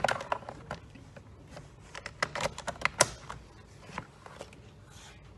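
Handling noise from a gas nail gun, its battery and parts on a workbench: a quick run of hard clicks and taps, the sharpest about three seconds in, thinning out toward the end.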